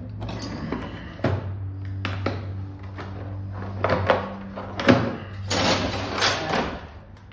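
Hand tools and metal parts being handled on an engine bench: irregular knocks and clinks, with a longer scraping, rattling stretch a little over five seconds in, over a steady low hum.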